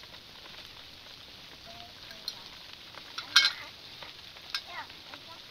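Food sizzling as it cooks over a fire, a steady hiss with a sharp clack about three and a half seconds in, the loudest moment.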